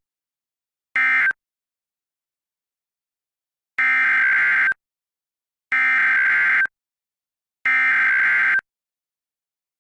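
Emergency Alert System (SAME) digital data bursts, as sent over NOAA Weather Radio: the last of three short end-of-message bursts about a second in, then a pause, then three longer buzzing header bursts of about a second each. The end-of-message bursts close the severe thunderstorm warning, and the header bursts announce the next alert, a tornado warning.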